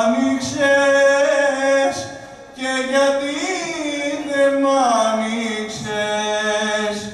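A man singing long, melismatic held notes that bend and waver in pitch, with a short break about two seconds in and another near the end.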